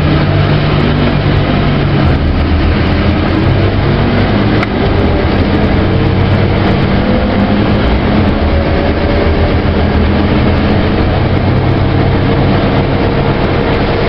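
Scania OmniCity bus's diesel engine and ZF automatic gearbox heard from inside the saloon, running steadily at speed with a fainter whine that slowly rises in pitch through the second half as the bus accelerates.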